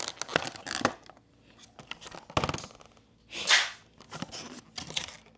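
Clear plastic blister tray crinkling and clicking as hands press on and shift the packs and card stacks in it, with a louder rustling swish about three and a half seconds in.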